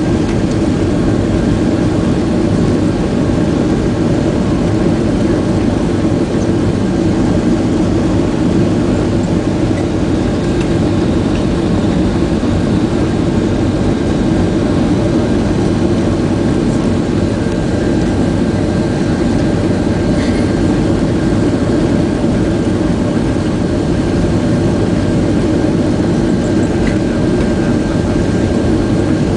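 Boeing 767-300 cabin noise: the jet engines and airflow as a loud, steady low rumble, with a faint steady whine above it.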